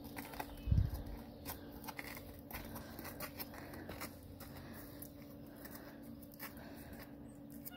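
Faint, irregular crunching footsteps on thin, crusted snow and grass, with a low thump a little under a second in.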